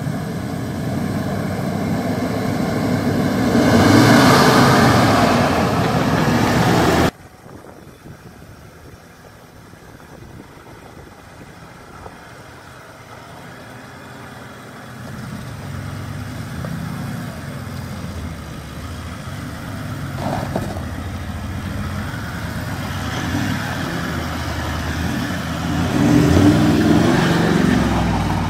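Off-road four-wheel-drive engines working under load on dirt tracks, revving up and easing off. The sound cuts off abruptly about seven seconds in to a quieter engine that slowly builds. It ends with the LandCruiser's 4.5 L turbo-diesel V8 revving hard as its tyres spin on loose dirt.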